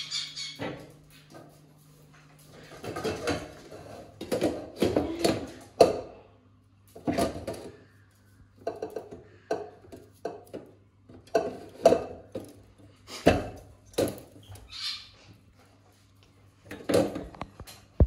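Stainless-steel cooking pots and lids knocking and clattering as a fennec fox noses into them on a gas stove: a string of short, irregular knocks and rattles.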